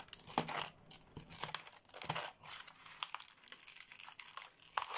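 Clear plastic blister tray crinkling and clicking as small gel polish bottles are handled and pulled out of it, in irregular short rustles and taps, the sharpest near the end.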